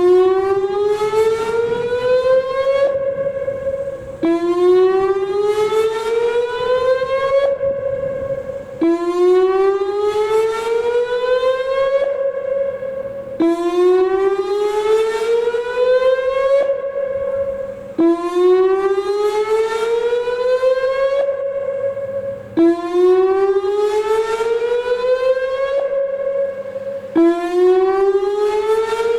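Whelen WPS-2809 electronic outdoor warning siren sounding its whoop tone on test. Each whoop is a rising glide that climbs for about three seconds, holds briefly at the top, then starts again low, repeating about every four and a half seconds.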